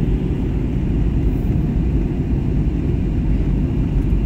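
Steady low rumble of a jet airliner's cabin in flight: engine and airflow noise heard from a window seat.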